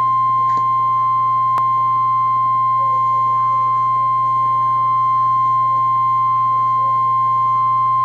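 NOAA Weather Radio warning alarm tone: one steady, high, unbroken tone at 1050 Hz, heard through a weather radio receiver over a low hum. It is the attention signal that announces a tornado warning.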